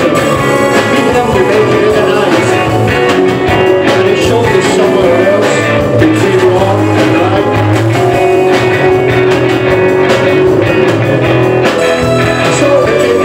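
Live punk rock band playing at full volume: electric guitars, bass guitar and a drum kit with cymbals crashing regularly.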